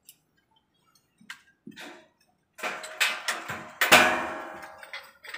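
Light-gauge steel stud framing clanking and ringing as it is worked by hand: a few light clicks, then a quick run of metal knocks, the loudest about four seconds in, with a ringing tail that fades over about a second.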